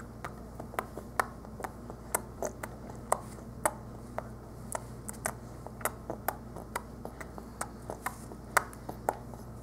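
A baby smacking her lips and gums, making a run of soft, irregular clicks, a few a second, over a faint steady hum.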